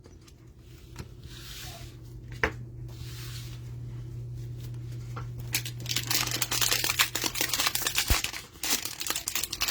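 Trading-card packaging being torn open and crinkled, a hanger box and its wrapper, with faint rustling at first, then dense crackling from about six seconds in.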